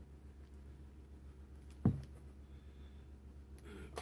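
A single sharp knock about two seconds in, a hard plastic power tool or battery being set down or snapped into place, over a low steady hum.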